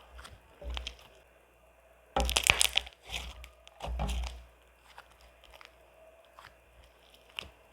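Soft slime mixed with foam pieces being squeezed and poked by hand, making irregular crunching and popping clicks. The loudest is a dense burst of crunches about two seconds in, with another around four seconds.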